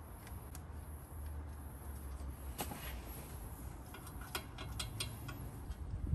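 Light metallic clicks and taps of a socket and extension on exhaust manifold nuts as they are run onto the manifold studs by hand. The clicks are scattered, with a cluster of them about four to five seconds in.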